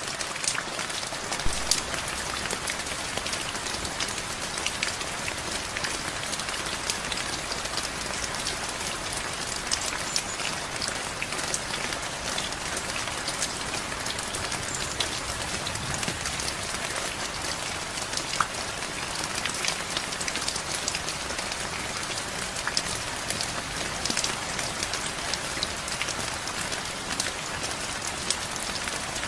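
Steady rain falling on a surface, with many sharp individual drop ticks over a constant hiss.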